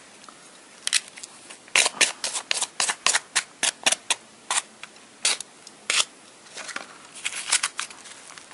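Chopsticks clicking against a natto tray as the sticky natto is stirred hard: a quick run of sharp clicks, several a second, with softer clicks near the end.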